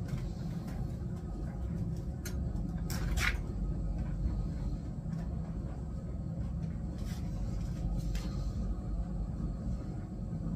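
Steady low rumble, with a few brief rustles and knocks from curtains and cloth being handled. The clearest comes about three seconds in, and two more come near the end.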